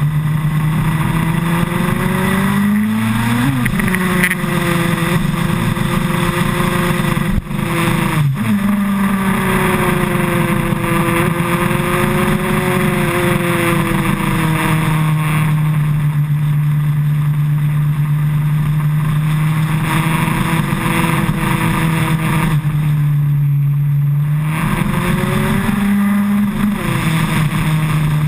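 Suzuki Hayabusa's inline-four engine heard from a bike-mounted camera while riding, with wind rushing over the microphone. The engine note climbs and falls with the throttle, dropping abruptly about 4 and 8 seconds in, holds steady through the middle, dips briefly and then rises again near the end.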